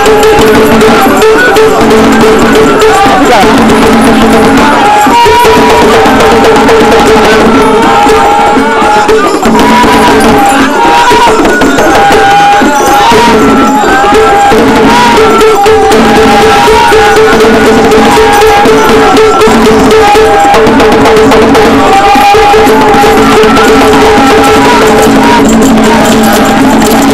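Esan traditional music, loud and continuous: drums and rattles beating steadily under held sung or played notes.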